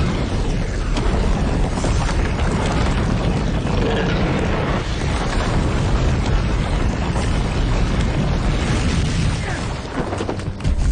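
Dragon's fire breath as a film sound effect: a long, loud, steady rush of flame over a deep rumble. It eases off shortly before a sharp, loud burst right at the end.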